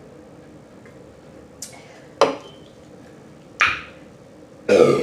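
Eating sounds: three short, sharp mouth smacks about a second apart, the last one the loudest and longest.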